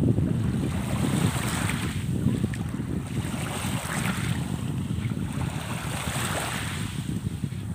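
Sea water washing in swells about every two seconds, under a steady rumble of wind on the microphone.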